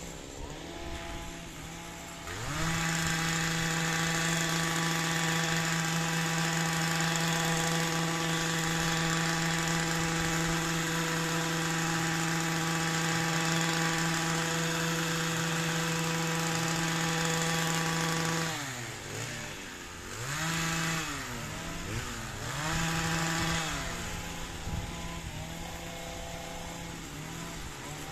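Small petrol engine of a long-reach pole hedge trimmer idling, then revved up a couple of seconds in and held at a steady high pitch for about sixteen seconds while cutting the hedge top. Near the end the throttle is let off and blipped a few times before it drops back to idle.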